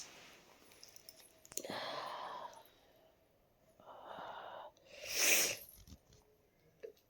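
Three noisy, unpitched bursts of breath from a person sick with a cold and cough. The last, about five seconds in, is the loudest.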